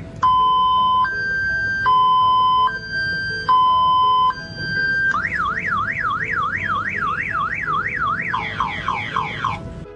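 Electronic car-alarm siren cycling through its tones: a two-pitch hi-lo alternation three times, then a fast warble sweeping up and down about three times a second, then quick repeated falling chirps near the end. Faint background music runs beneath.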